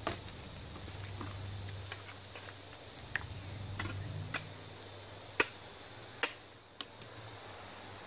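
Scattered light clicks and ticks as stripped copper wire and its peeled insulation are handled, over a steady low hum and a steady high hiss.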